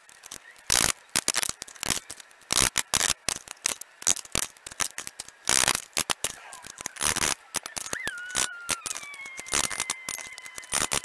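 Hammer striking a metal bar clamped in a bench vise to bend it into a brick jointer: an uneven run of sharp metal blows, some leaving a short ring that slides down in pitch about eight seconds in.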